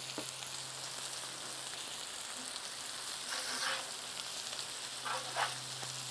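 Fish fillets, hush puppies and potatoes sizzling steadily on a hot flat-top griddle. A metal spatula scrapes across the griddle plate twice: once a little past halfway and once near the end.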